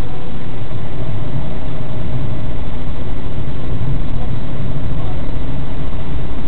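Car engine and road noise heard from inside the cabin while driving slowly: a loud, steady low rumble with no change in pitch.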